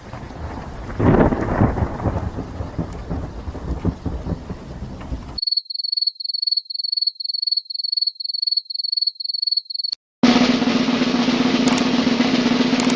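Three separate sound effects in a row: first a rumble like thunder for about five seconds, then a high electronic beep repeating about three times a second, then, after a brief gap, a steady noisy sound with a low hum.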